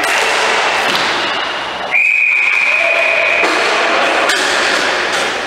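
A referee's whistle blown in one long, steady blast about two seconds in, over the noise and knocks of the indoor rink.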